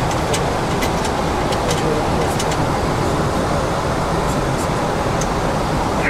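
Steady rushing noise of a Boeing 737 cockpit in flight, with scattered sharp ticks over it.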